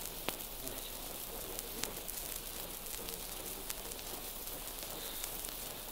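Surface noise of a 1930s archival disc recording: a steady hiss with scattered clicks and crackles.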